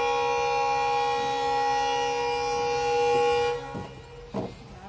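Indian Railways locomotive horn sounding one long, steady blast that cuts off sharply about three and a half seconds in. A few short knocks follow.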